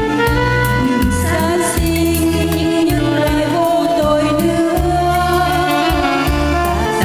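A woman singing a slow, held melody line into a microphone over amplified backing music, with a repeating bass line and steady cymbal ticks.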